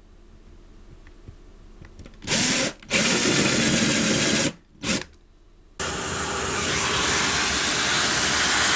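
Power drill boring holes in the base, starting and stopping in three short bursts, then running steadily from about six seconds in.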